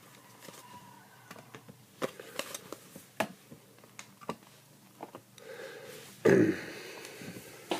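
Trading cards being handled and flipped through by hand: light scattered clicks and slides of card stock, with a louder burst of breathy noise about six seconds in.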